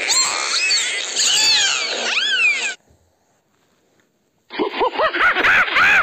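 Dolphin whistling: many quick whistles gliding up and down in pitch, stopping a bit under 3 s in. After a short silence, a gray langur gives a rapid series of rising-and-falling calls.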